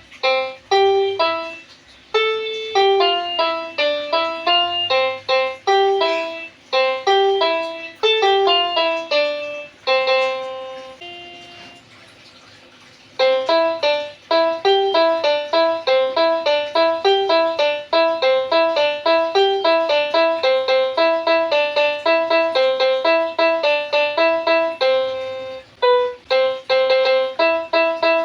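A 'telolet basuri' piano, a keyboard toy or app voiced after the multi-tone horns of Indonesian Basuri buses, played by hand in a quick melody of short notes, with a pause of about two seconds near the middle.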